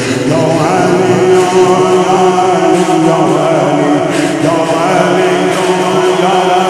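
A noha, a Shia mourning chant: a man's voice chanting a melody over a steady low drone.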